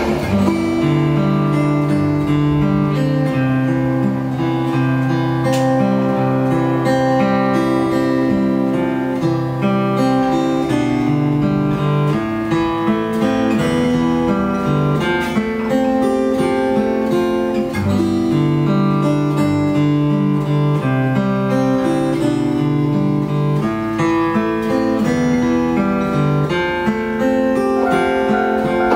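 Solo guitar played fingerstyle in slow arpeggios, single notes ringing on over one another.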